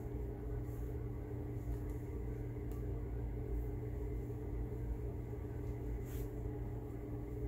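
Steady low room hum carrying a couple of faint steady tones, like a fan or appliance running. Two faint brief scratchy ticks come about a third of the way in and near the end.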